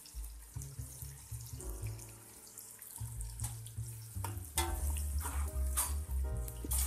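Sliced onions sizzling and crackling in hot ghee in a deep pot, just starting to brown, with background music playing over it.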